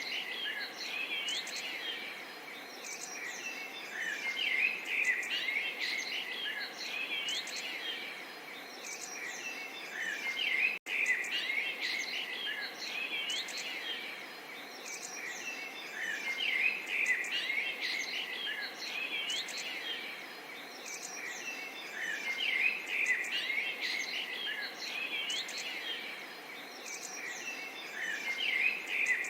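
A chorus of small songbirds chirping and twittering over the steady soft babble of a small stream of water, swelling and easing in waves. The sound cuts out for an instant about eleven seconds in.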